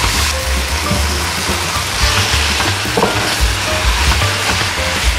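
Spicy marinated pork sizzling in a frying pan as a wooden spatula stirs it, with short scrapes of the spatula against the pan, one about three seconds in; sliced onion and green onion are being fried with it.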